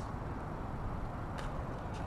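Steady low background rumble of outdoor noise, with a single short click about one and a half seconds in.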